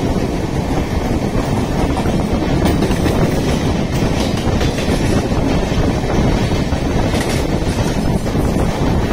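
Mumbai suburban local train running, heard from on board: a steady, loud rumble of wheels on the rails.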